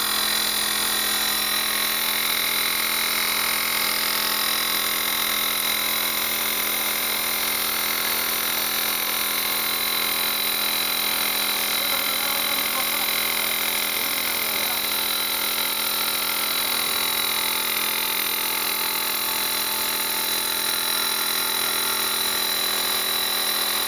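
CNC wood lathe with double turning tools running steadily, turning a wooden spindle: a constant motor whine over an even hiss.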